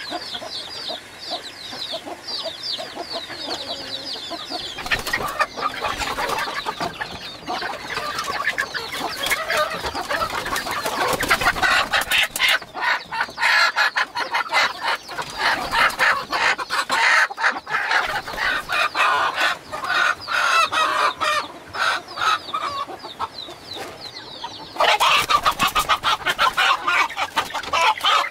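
Chickens clucking and squawking, with high, quick peeping in the first few seconds. About five seconds in the calls grow louder and busier, as a flock does when birds are being caught.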